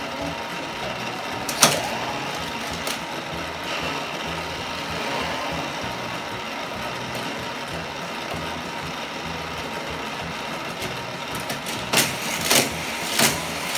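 Steady whirring of a battery-powered Hot Wheels Criss Cross Crash track set's motorized booster. One sharp click comes about a second and a half in, and a quick run of four sharp clacks comes near the end.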